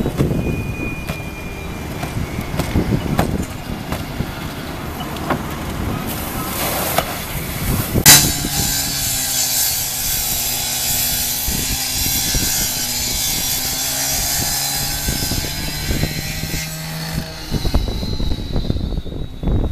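Semi truck fire crackling and popping, with one sharp bang about eight seconds in. A fire hose stream then hisses against the flames for about nine seconds over a steady low hum, and the crackling returns near the end.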